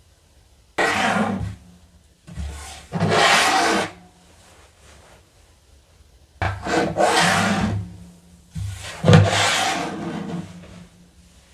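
Four bursts of rubbing and scraping, each lasting a second or two.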